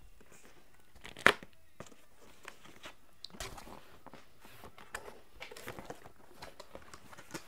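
A cardboard shipping box being opened by hand: one sharp snap about a second in, then irregular rustling and scraping as the flaps are folded back and the packing inside is handled.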